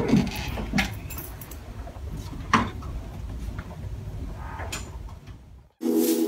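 Shuffling and footsteps of several people getting up from chairs and walking out of a room, with three sharp clicks or knocks along the way. Near the end the sound cuts off and music starts abruptly.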